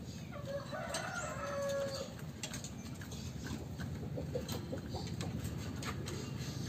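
A fowl calling: one drawn-out call starting about a second in and lasting about a second, then a few short soft clucks, with scattered light clicks.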